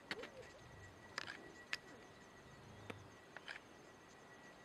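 Faint open-air background with several sharp clicks scattered through it and a faint steady high tone.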